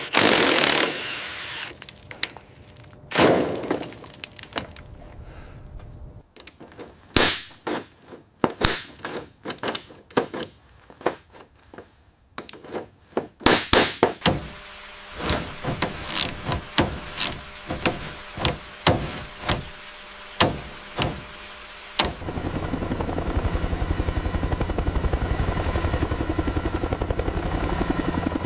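Tools on rusted aircraft metal: a short burst from a cordless impact driver, then a run of sharp metallic clicks and knocks. About 22 seconds in, a steady helicopter rotor drone takes over.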